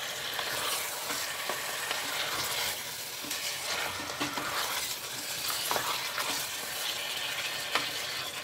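Mutton pieces and ginger-garlic paste sizzling in hot mustard oil in a pressure cooker, a steady hiss, while a wooden spatula stirs them with scattered scrapes and knocks against the pot. This is the bhuna frying stage of a mutton curry.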